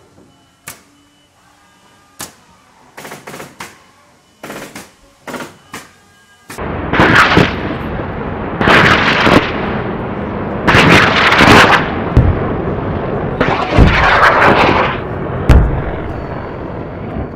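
A few faint scattered clicks, then from about six seconds in a run of four loud rushing blasts, each about a second long and roughly two seconds apart, with several deep booms among them.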